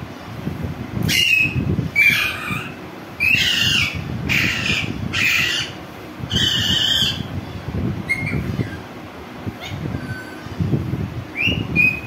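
Caged green Indian parakeet squawking: six harsh screeches about a second apart, followed by a few softer, shorter chirps and whistles in the second half.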